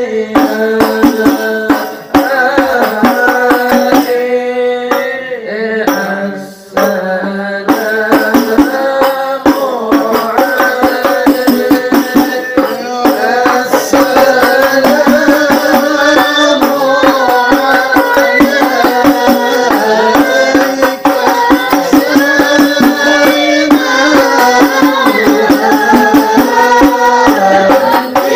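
Al Habsyi ensemble performing sholawat: voices singing an Arabic devotional melody over fast, dense frame-drum beating.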